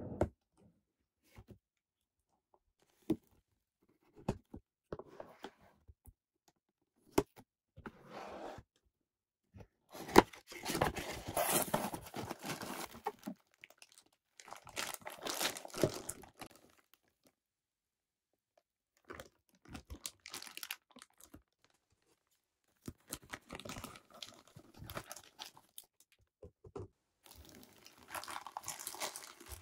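A cardboard figure box handled and opened, with scattered sharp clicks and taps, then clear plastic packaging bags around the figure and its base pulled out and crinkled in several bursts of rustling a few seconds long.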